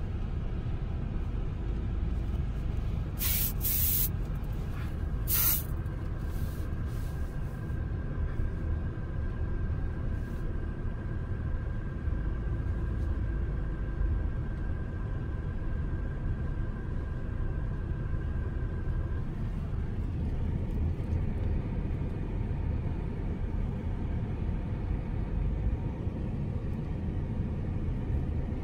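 Car cabin road noise while driving: a steady low rumble of tyres and engine, with two short hissing bursts a few seconds in and a faint steady high tone through the middle.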